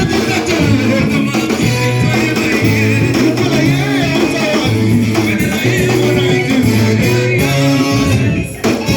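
Worship band music with singing: guitar, a bass line and drum kit playing steadily, with a brief break near the end.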